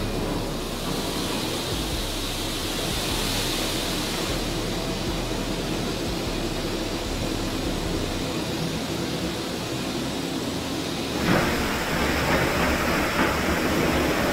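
Steady mechanical noise of heavy vehicles and machinery in a large steel-mill hall. It steps up, louder and hissier, about eleven seconds in.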